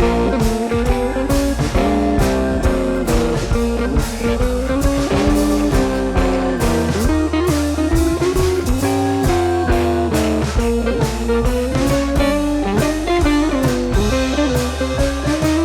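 Background music: a bluesy electric guitar melody over bass and a steady drum-kit beat.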